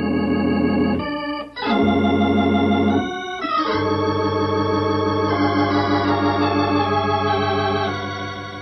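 Organ music bridge between scenes of a radio drama: a few held chords, changing about a second and a half in and again near three and a half seconds, the last one sustained for several seconds and fading near the end.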